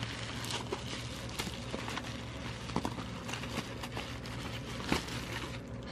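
Plastic bubble wrap crinkling and crackling in the hands as a wrapped package is pulled open, in irregular small clicks with a few sharper crackles.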